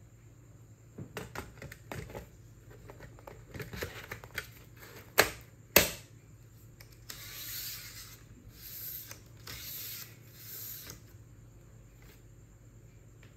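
Plastic toner cartridge being handled and pushed into a laser printer drum unit: light plastic knocks and rattles, then two sharp clicks about half a second apart as it snaps into place. Four scraping strokes of plastic rubbing on plastic follow, each about a second long.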